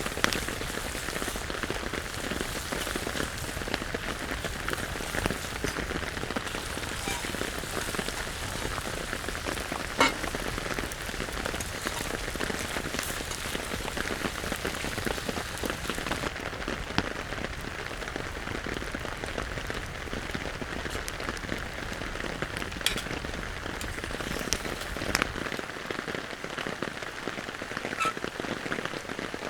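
Steady rain falling, with a few louder single drops striking close by now and then.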